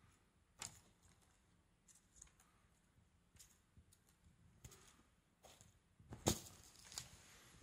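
Scattered light clicks and soft rustles from a wand cat toy being moved, with two sharper clicks about six and seven seconds in.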